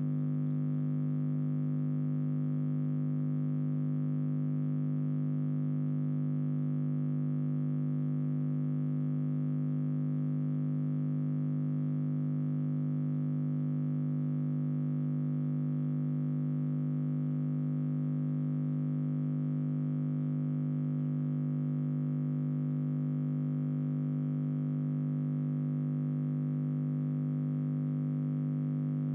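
A steady low buzzing drone, a stack of tones that holds one pitch and level throughout, with no bird calls standing out.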